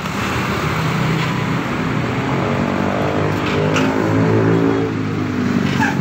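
Diesel engine of a tour coach pulling away at low speed, passing close by. The engine note climbs from about two seconds in as it gathers pace.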